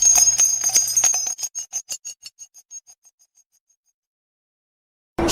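DJ drop sound effect: a jingling, bell-like shimmer that breaks into a fast stutter of echoing repeats and fades out over about two seconds. A couple of seconds of silence follow, then another effect with music cuts in abruptly near the end.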